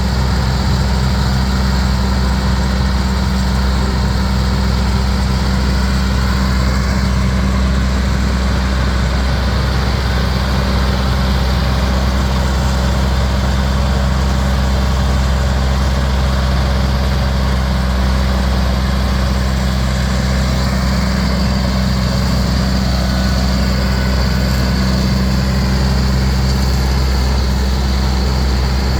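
Ford 7000 tractor's four-cylinder diesel engine running steadily at constant speed while driving a double-chop silage harvester.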